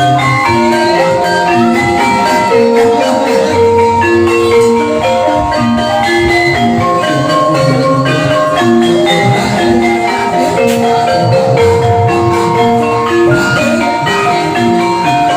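Gamelan ensemble playing ebeg accompaniment: fast interlocking melodies on struck tuned keys, loud and unbroken.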